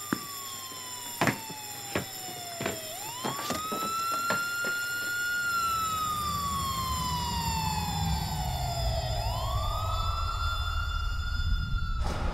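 A siren wailing, its pitch falling slowly and then sweeping back up in long cycles. Several sharp knocks come in the first few seconds, and a low rumble builds from about halfway.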